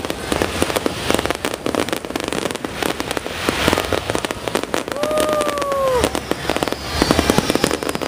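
Fireworks display: a dense, continuous run of bangs, pops and crackling from bursting shells. About five seconds in there is one short whistling tone that drops in pitch at its end.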